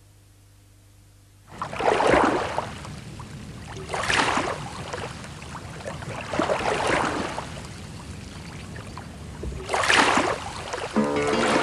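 Small sea waves washing onto a shore: four swelling rushes of water about two to three seconds apart, beginning a second and a half in. Plucked-string music comes in near the end.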